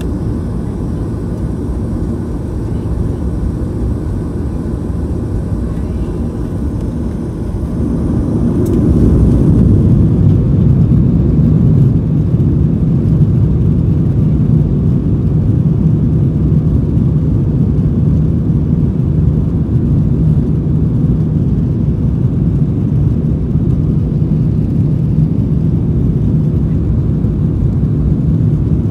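Twin CFM56-7B turbofan engines of a Boeing 737-900ER, heard from inside the cabin over the wing, running at a low steady level and then spooling up to takeoff thrust about eight to ten seconds in, followed by the loud steady rumble of the takeoff roll.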